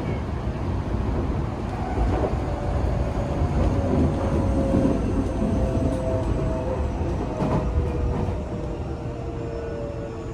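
Tokyo Metro 8000-series train heard from inside the car while running: a steady rumble of wheels on rails with a thin motor whine that drifts slightly down in pitch and a few faint clicks.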